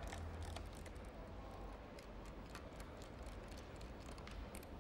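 Faint, scattered light clicks and ticks of small metal parts, such as bolts, being handled on an engine's cylinder head cover, over a low steady hum.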